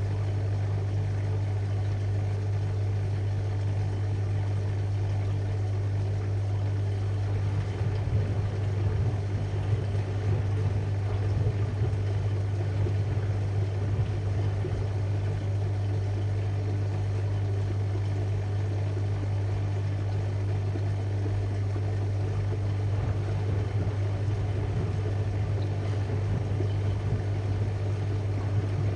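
AEG Lavalogic washing machine running its distribution fill for the final rinse: the drum motor turning steadily with a strong, even hum while water fills.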